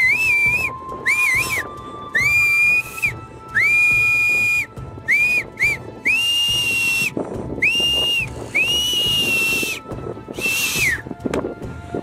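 A series of about ten loud whistled notes, each held steady at one high pitch for half a second to a second, with short gaps between them.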